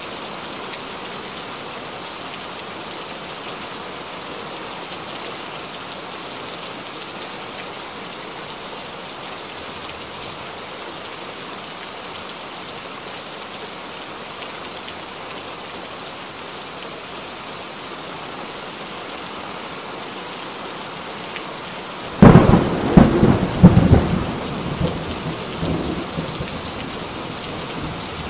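Heavy rain falling steadily. Near the end, a loud clap of thunder breaks in suddenly and rumbles away over a few seconds.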